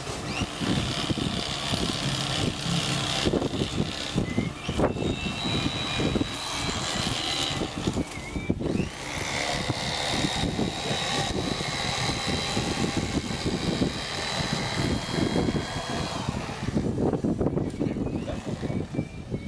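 Electric fillet knife running, its motor-driven blades buzzing as they saw through the flesh of a large black grouper, with a thin high whine that comes and goes.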